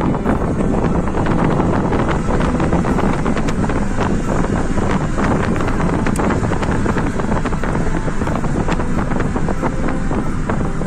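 Wind buffeting the microphone through an open car window, with crackles throughout, over the steady rumble of the car and its tyres on the road.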